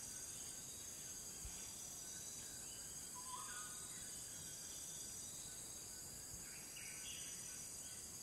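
Faint outdoor ambience: a steady high hiss, with a few short faint bird chirps about three seconds in and again near the end.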